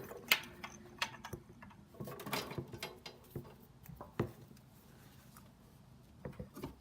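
Hand tools and small metal parts clinking and rattling on a mower, with several sharp knocks about a third of a second in, near two and a half seconds and just after four seconds.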